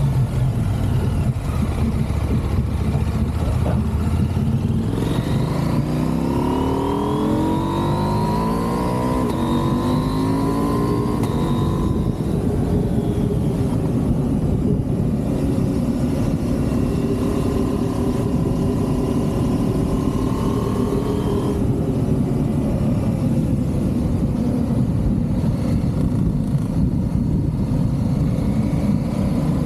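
Motorcycle engine under way, its pitch climbing steadily for several seconds as it accelerates, then holding level before easing off about two-thirds of the way in, under steady wind noise.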